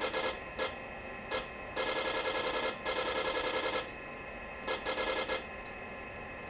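An optical mouse sliding over its gridded plastic pad, giving short rasping spurts as it is dragged: a brief one near the start, a longer one of about two seconds in the middle, and another short one later, over a faint steady computer hum.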